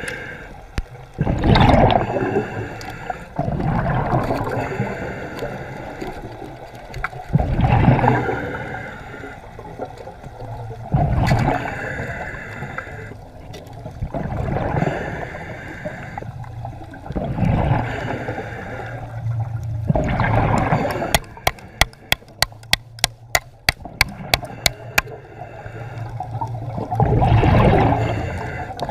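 Water sloshing and gurgling, swelling in surges every few seconds, with a quick run of sharp clicks, about four or five a second, about two-thirds of the way through.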